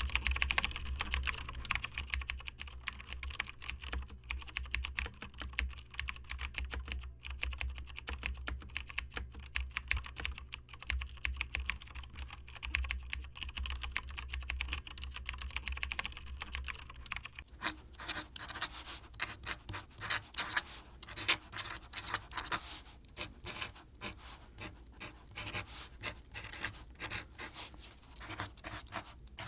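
Typing on a computer keyboard: a fast, continuous stream of key clicks. About two-thirds of the way in, a low hum underneath drops away and the clicks become sharper and more widely spaced.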